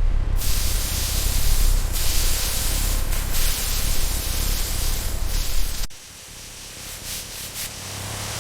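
Loud, steady spraying hiss with a low rumble underneath, which cuts off abruptly about six seconds in, giving way to a quieter hiss.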